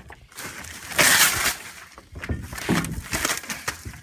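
Plastic sheeting crinkling and rustling as it is handled and pulled away from an engine, with a loud crackling burst about a second in.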